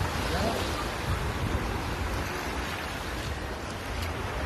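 Steady wash of sea surf with wind buffeting the microphone in a low rumble.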